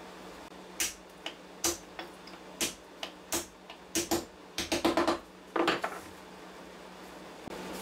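Small steel parts and hand tools handled on a workbench: a string of sharp metallic clicks and knocks, spaced out at first and then coming quickly in a cluster about four and a half to six seconds in.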